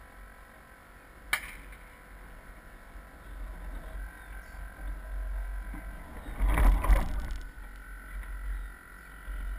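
Water splashing and rushing along the hull of a Soling 1 meter radio-controlled model sailboat, with a low wind rumble on the deck-mounted camera. There is a sharp click about a second in. A louder rush of water and wind comes around six to seven seconds in as the boat comes about onto the other tack.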